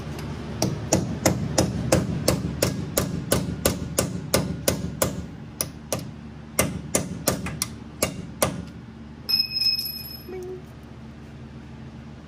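Repeated hammer blows on metal at the Jeep Wrangler JKU's rear driveshaft flange, about three a second in two runs, knocking the driveshaft loose from the differential yoke once its bolts are loosened. A brief high-pitched squeal follows about nine seconds in.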